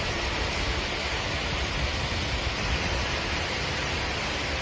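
Steady rushing noise of a typhoon downpour and wind over floodwater, with a low, uneven rumble underneath.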